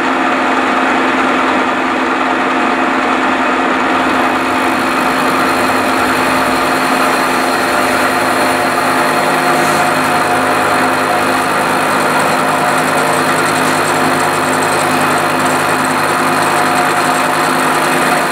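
Milling machine running steadily as its cutter faces the top of a steam-cylinder casting, taking a 2 mm cut. The cutting noise gets brighter about four seconds in.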